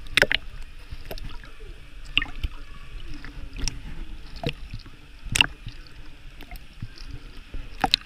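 Water splashing and sloshing around swimmers in a pool of water: a run of irregular sharp splashes, the loudest about five seconds in, over a low steady rumble of moving water.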